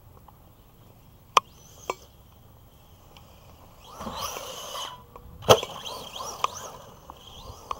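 Arrma Big Rock V3 brushless RC monster truck driving on a dirt track: two sharp clicks early on, then a burst of motor whine with tires spraying dirt about four seconds in. A sharp, loud knock comes about a second later, followed by more short whines and clicks.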